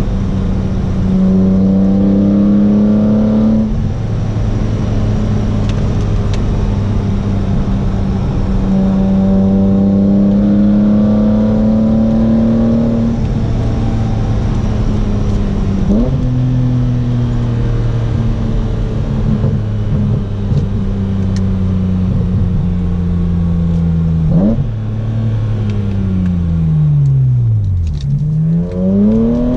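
BMW Z4 M's S54 straight-six, fitted with a carbon airbox and axle-back exhaust, heard from inside the cabin while driving: mostly a steady part-throttle engine note at moderate revs, with two brief upward flicks in pitch along the way. Near the end the revs fall away as the car slows, then climb sharply as it accelerates again.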